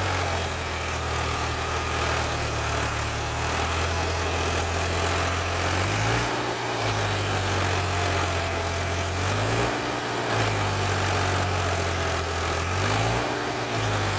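Eicher 5660 tractor's three-cylinder diesel engine working hard under load as the tractor churns through deep mud pulling an overloaded trolley of soil. Its note rises and falls back about three times as the revs change.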